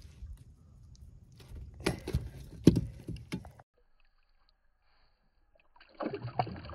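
Knocks and splashing as a caught fish goes back over the side into the lake, loudest about two to three seconds in, then a second burst of splashing near the end as the fish kicks away at the surface.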